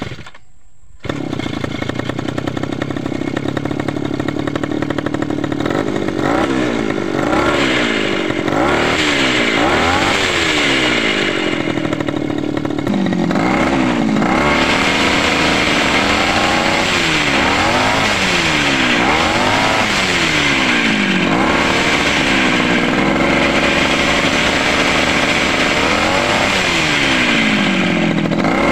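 Small two-stroke brush-cutter engine driving a homemade outboard propeller. It starts up about a second in, runs steadily, and from about six seconds is revved up and down over and over, about once a second.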